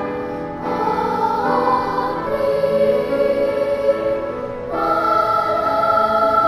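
Children's choir singing held chords in several voices. Brief breaks between phrases come about half a second in and near 5 s, and the later phrase opens on a high sustained note.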